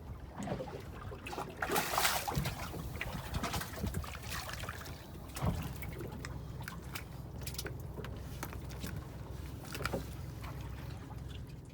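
Water sloshing and splashing around a small boat, with scattered knocks and clicks over a steady low rumble.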